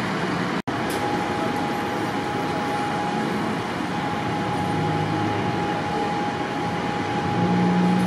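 Steady street noise of idling vehicle engines, with a thin steady whine from about a second in. The sound drops out for a split second just over half a second in.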